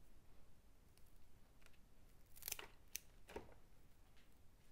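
Faint rustles and crackles of Queen Anne's lace stems being handled, a few short sounds clustered about two and a half to three and a half seconds in, against a quiet room.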